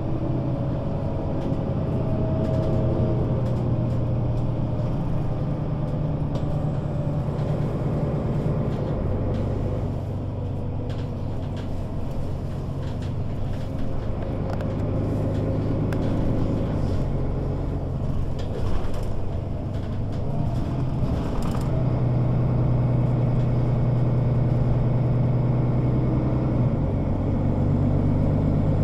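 Mercedes-Benz O 530 Citaro city bus engine running while the bus is driven. Its note shifts down and back up a few times, with a few short clicks and rattles.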